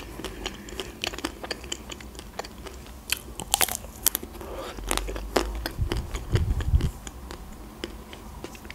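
Close-miked biting and chewing of a chocolate-coated Milka ice cream bar, with sharp crackles as the chocolate shell breaks and crunches, thickest about three to four seconds in.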